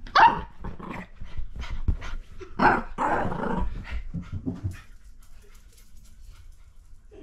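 Miniature Fox Terrier growling and barking in a play-fight with a hand, with a sharp loud burst at the start and a longer stretch of growling around three seconds in; it dies down after about five seconds.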